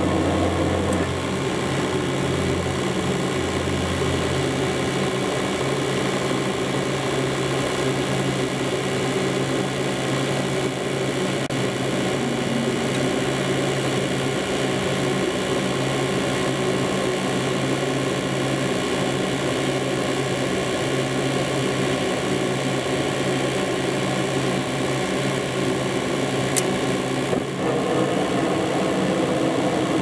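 Gas furnace's draft inducer motor running with a steady mechanical hum and several fixed tones, during a start-up attempt; a low tone drops out a few seconds in and the sound shifts briefly near the end.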